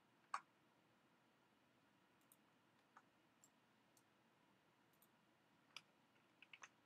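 Scattered computer mouse clicks against near silence: one sharper click about a third of a second in, a few faint ones through the middle, and three quick clicks near the end.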